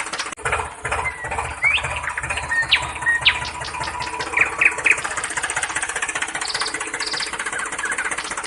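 Heavy digging machine's diesel engine running steadily with a fast low chug, with short high chirps heard now and then over it.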